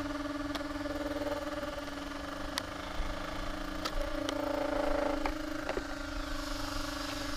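Steady electric hum from an Arrma Typhon 6S brushless RC buggy powered up and sitting still, holding one pitch, with a few faint ticks.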